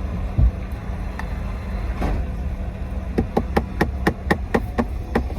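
Car cabin rumble while driving, with a single thump about half a second in and a quick run of sharp taps, about four a second, over the last two seconds or so.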